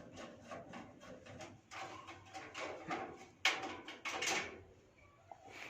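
Handling noise as the computer cabinet is moved: irregular scraping and rustling, with two louder scrapes about three and a half and four seconds in.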